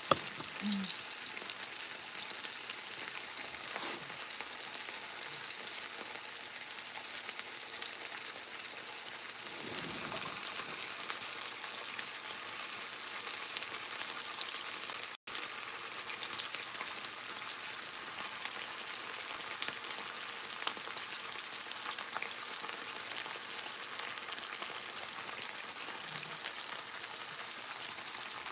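Bacon-wrapped pork loin frying in a pan on the stovetop: a steady, fine crackling sizzle, a little louder from about ten seconds in.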